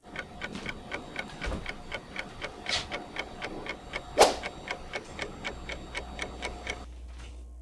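Fast, even clock-like ticking, about five ticks a second, with a loud whoosh about four seconds in. The ticking stops about a second before the end, leaving a low hum.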